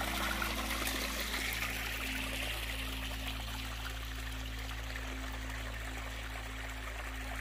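Small hillside stream trickling and splashing over rocks, a steady rush of water, over a steady low drone of background music.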